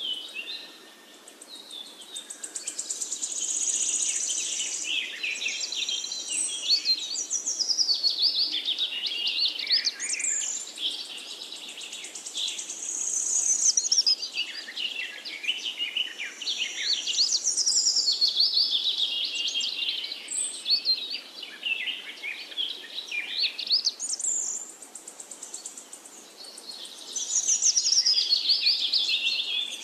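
Birds singing: dense, rapid chirps and trills in phrases of several seconds that swell and fade again and again.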